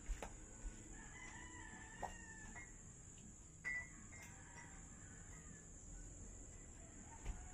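A rooster crowing: one long, wavering crow about a second in, then a short sharp call a couple of seconds later. A few light knocks and a steady high-pitched hum lie underneath.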